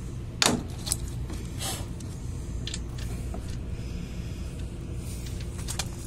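A few sharp metallic clicks and clinks as a brass refrigeration hose fitting is fitted and screwed onto a scroll compressor's oil charging port, over a steady low hum.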